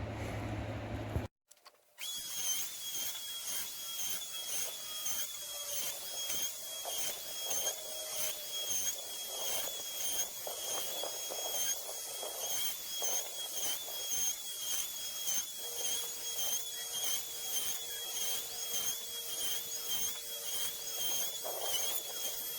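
Electric wood router with a small bit surfacing a large timber slab: a steady high-pitched whine, its level wavering as the bit is pushed back and forth through the wood. It starts about two seconds in, after a short break.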